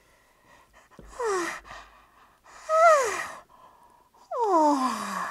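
Three big yawns voiced by a person for a baby monkey puppet, each a breathy cry that slides down in pitch, the third the longest and loudest.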